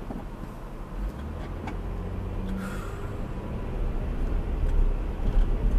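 A car's engine and road rumble heard from inside the cabin as it pulls away from a stop, growing louder.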